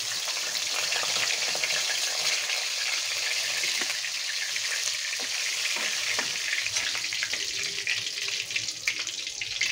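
Rohu fish tail pieces frying in hot mustard oil in a metal kadai, a steady sizzle with scattered crackles. A spatula scrapes against the pan as the fried pieces are lifted out, and the oil keeps sizzling once the pan is empty.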